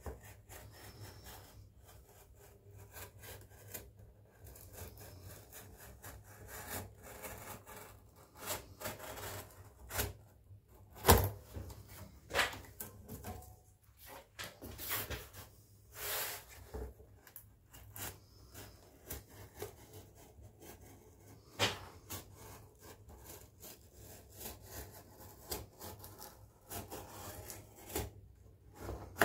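Knife cutting and scraping through cardboard in short irregular strokes, with rustles and knocks as the sheet is handled; one sharp knock about eleven seconds in is the loudest.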